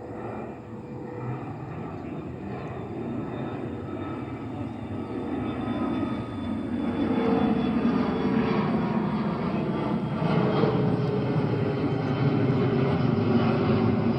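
Mitsubishi CRJ900 regional jet's twin turbofan engines at takeoff power: jet noise with a faint whine, growing louder over the first half as it comes closer and then holding loud.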